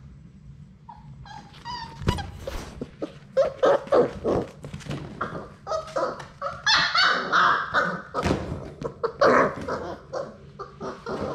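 Labrador retriever puppies whining and yipping at play, a string of short high calls that starts about a second in and grows busier from about three seconds on, with a couple of sharp thumps among them.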